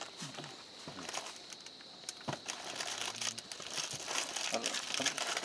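Packaging crinkling and rustling, with small clicks and knocks, as boxes of syringes and a plastic case of medical supplies are handled.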